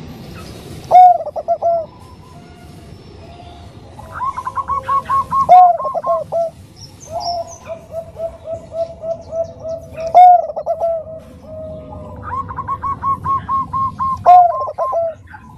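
Bangkok-line zebra dove (perkutut) cooing: runs of quick, short staccato coo notes, with four louder drawn-out coos breaking in among them.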